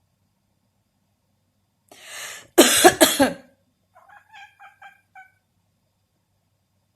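A cat coughing: a soft breath, then a loud hacking cough in three quick bursts, followed by five short squeaky sounds.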